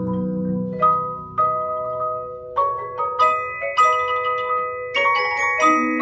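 Mallet percussion ensemble of marimba, glockenspiel and vibraphone playing a tune. Single struck notes ring on and overlap, sparse at first and coming faster from about halfway through, with lower notes joining near the end.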